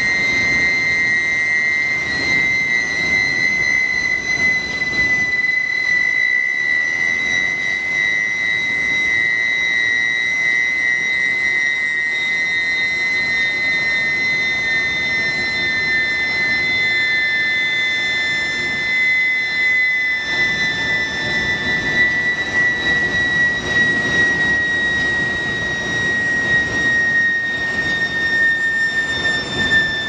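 Billet induction heating furnace running: a steady high-pitched whine from the induction coils, two close tones that sink slightly in pitch, over a continuous rumble of heavy plant machinery.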